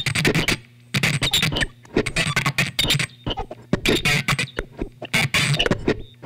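Experimental noise music: choppy, irregular bursts of noise that cut in and out every fraction of a second over a steady low hum.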